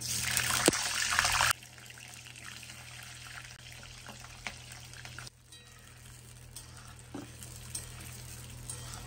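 Potato pieces dropped into hot mustard oil in a kadai: a loud sizzle for about the first second and a half, then steady, quieter frying with scattered pops. Near the end a metal spatula stirs the potatoes, giving a few light knocks.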